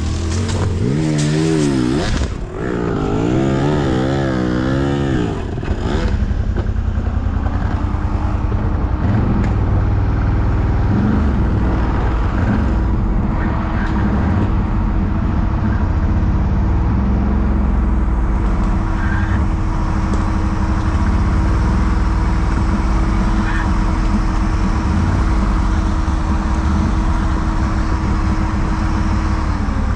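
Quad ATV engine revving up and down in quick swings for the first few seconds, then running steadily under load with a held, even tone that drops away near the end.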